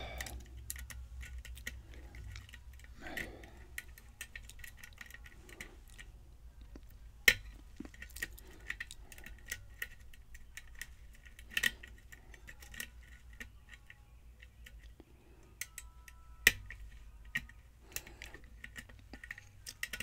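Lock picking a mortise cylinder: a steel hook pick and tension wrench clicking and scraping against the pins in the keyway, with scattered small metallic clicks and a few sharper ones about seven, eleven and a half and sixteen and a half seconds in. A low steady hum runs underneath.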